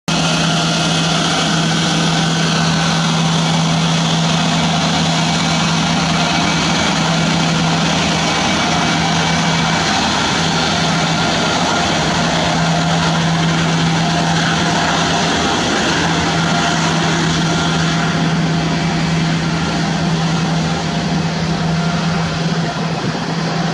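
Cessna Citation X's twin rear-mounted Rolls-Royce AE 3007C turbofans running steadily at low power as the jet sits on the runway: a loud, even rush of jet noise with a steady low hum and a fainter whine.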